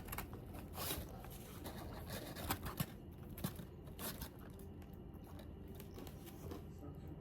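Faint, scattered small clicks and rustles of fried chicken tenders and their takeout packaging being handled while eating, over a faint steady low hum.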